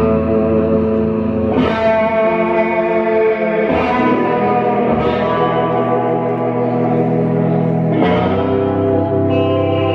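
Live rock band instrumental: electric guitars ringing out sustained chords with low notes beneath, the chord changing every couple of seconds, about two, four, five and eight seconds in.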